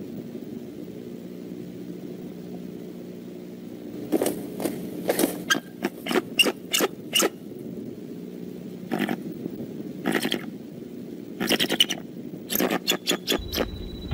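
A bald eagle shifting on its stick-and-grass nest: short crackling and scraping sounds in irregular bursts from about four seconds in, over a steady electrical hum from the nest camera.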